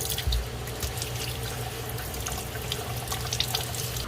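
Tap water running into a sink while electric-scooter brake pads are washed clean of dirt, with scattered small clicks and taps from handling them.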